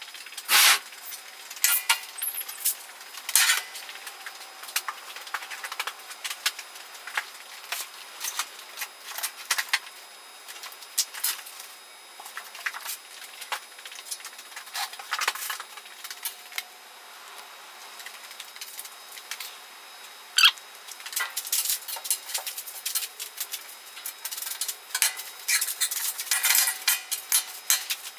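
Metal parts and hardware clinking and clanking as they are handled: a run of irregular sharp knocks, a few of them loud, with quieter stretches between.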